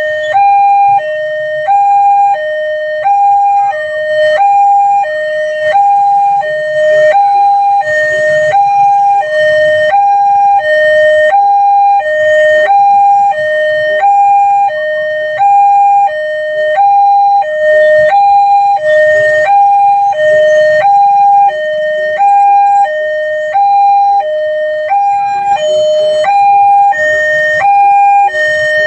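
Railway level-crossing warning alarm sounding a loud two-tone electronic signal, a higher and a lower tone alternating about once a second without a break. It is the warning that a train is approaching and the barrier should close.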